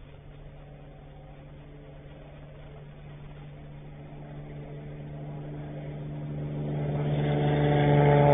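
Beechcraft Bonanza's six-cylinder piston engine and propeller at full takeoff power during the takeoff roll, a steady drone that grows louder as the plane closes on the microphone and is loudest near the end as it lifts off.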